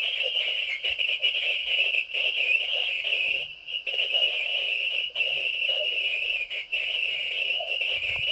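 A foghorn blast played back from an answering-machine tape after being copied from machine to machine many times, so generation loss has worn it down to a hissy, buzzing drone. It cuts out briefly several times.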